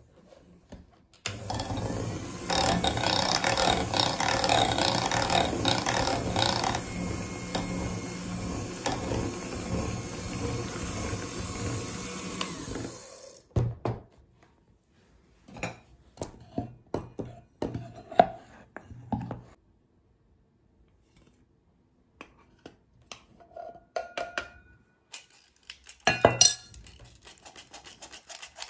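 Electric hand mixer running for about twelve seconds, its beaters mixing ground walnuts into thick cake batter in a glass bowl, then switched off. After it come scattered light clinks and taps.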